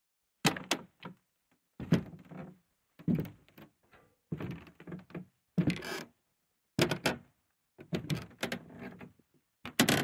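Wooden floorboards creaking under slow footsteps: about eight creaks, one every second or so, each starting with a sharp knock and fading within about half a second.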